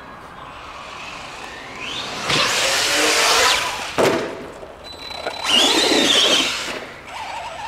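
Arrma Big Rock 3S RC monster truck's brushless motor whining up under throttle, with a loud rush of tyres churning dirt. There is a sharp knock about four seconds in, then a second burst of throttle whose whine rises and falls.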